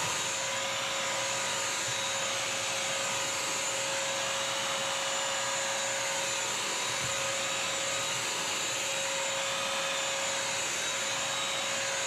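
BISSELL CrossWave wet/dry vacuum-mop running steadily as it scrubs and vacuums a sealed hardwood floor: a steady motor whine over a rushing hiss.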